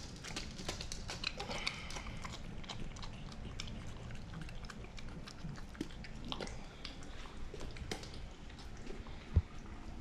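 French bulldog eating plain yogurt off a spoon and the floor, licking and chewing in a steady run of quick, wet clicks. One thump near the end.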